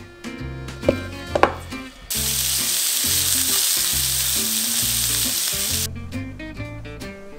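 Strips of pork jowl sizzling as they fry in a pan. The sizzle starts suddenly about two seconds in and cuts off about four seconds later, over background music. Two short sharp accents sound about a second in.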